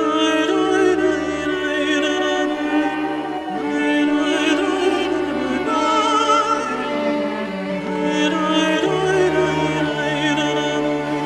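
Slow background music with long held notes that waver in vibrato.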